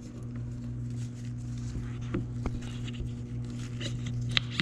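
A few light clicks and knocks, a pair about two seconds in and a sharper one near the end, from the clutch basket being fitted onto the shaft of a Honda CR85 engine, over a steady low hum.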